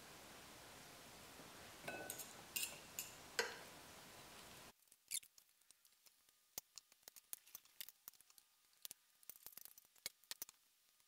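Faint handling sounds of cooked chicken being pulled off the bones in a ceramic slow-cooker crock: soft squishes and small clicks, then many light, scattered ticks. A steady background hiss cuts off abruptly about halfway through.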